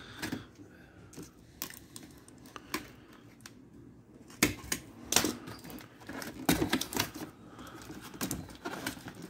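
Hands prying open a cardboard box flap and pulling a hard plastic drill carry case out of the box. Irregular clicks, taps and scrapes of cardboard and plastic, with a few louder knocks in the second half.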